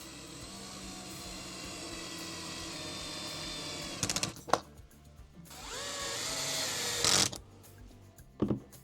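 Small electric screwdriver running in stretches, driving screws into a plastic-and-metal model truck chassis; its motor whine rises as it spins up, with a few short loud rattles in between.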